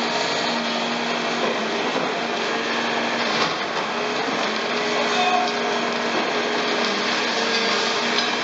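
Caterpillar crawler excavator's diesel engine running under load with its hydraulics working, the engine pitch shifting as the boom moves, and a couple of sharper knocks of demolition debris in the middle.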